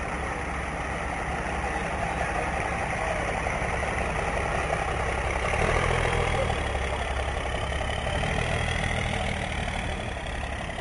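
Pickup truck engine idling as it creeps along towing a race boat on its trailer. The low engine note grows stronger about halfway through and eases off near the end.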